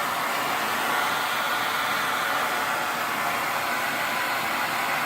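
Vacuum cleaner running steadily, an even airy hiss with no change in level.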